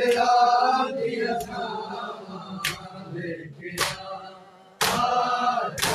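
A group of men chanting a Muharram mourning chant (noha) together, with sharp slaps of hands on bare chests (matam) landing about once a second.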